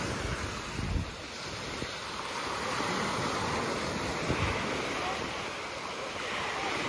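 Sea surf breaking and washing on the shore as a steady rush of waves, with wind buffeting the microphone in gusts about a second in and again just after four seconds.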